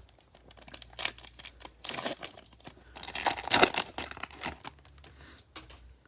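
Trading-card pack wrapper crinkling and tearing as a pack is opened and handled, in a run of irregular crackles that is busiest in the middle and tapers off near the end.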